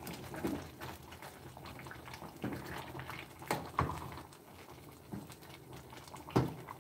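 Wooden spoon stirring a thick potato stew in a stainless steel pot, with several soft knocks of the spoon against the pot, the clearest about three and a half seconds in and near the end.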